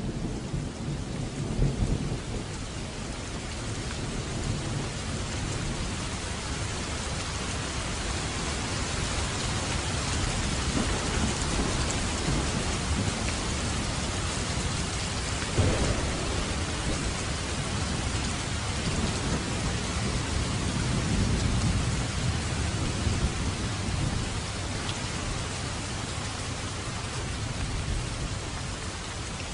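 Steady rain falling, with thunder rumbling low in the background: one swell near the start, one sharp jolt about halfway through and another swell later.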